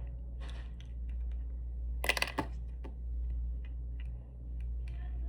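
Light clicks and taps of small plastic miniature pieces being handled, with a louder brief rustle about two seconds in, over a steady low hum.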